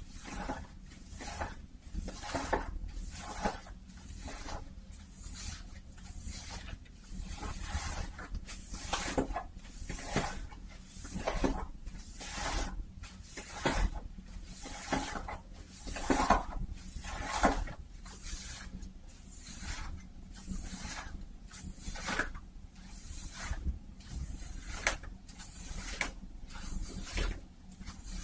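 A hat's fabric being rubbed and scratched close to the microphone, in a steady run of swishing strokes about once a second.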